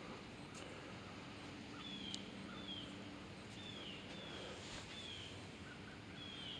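A bird calling: about half a dozen short, high notes, each falling in pitch, spaced roughly a second apart over quiet outdoor background with a faint steady low hum.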